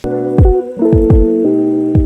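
Background music that cuts in suddenly: held keyboard chords over deep bass-drum hits that drop in pitch, about four of them.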